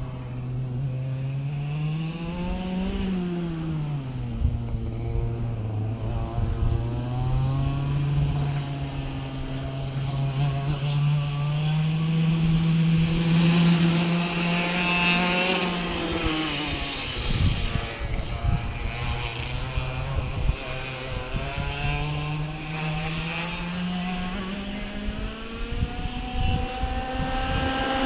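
A motor engine running throughout. Its pitch rises and falls once about three seconds in, holds fairly steady through the middle, and climbs again near the end as it draws closer.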